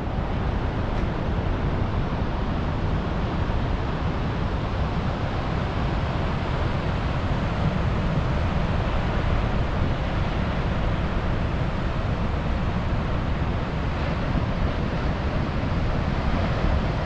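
Ocean surf breaking on a sandy beach, a steady roar mixed with wind on the microphone.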